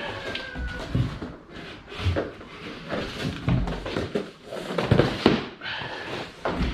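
Cardboard boxes and paper packing being handled, with irregular knocks and thuds as shock absorbers are unpacked and set down.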